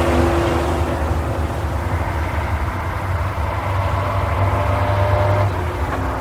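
Racing truck engine running steadily at low revs, a deep, fairly loud engine note.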